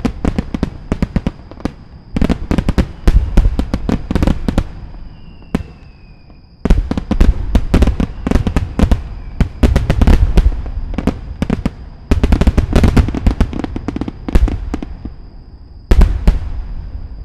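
Aerial firework shells bursting in rapid-fire volleys, a starmine barrage of dense booms and crackles. The volleys come in waves with a short lull about five seconds in, and a last pair of loud bursts near the end dies away.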